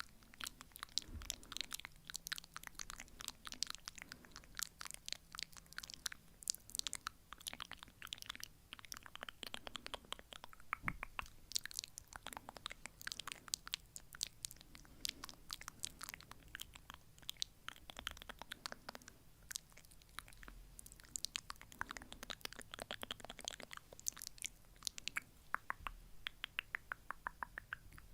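ASMR fast tapping and clicking sounds close to the microphone, in quick runs of crisp ticks with short gaps between them.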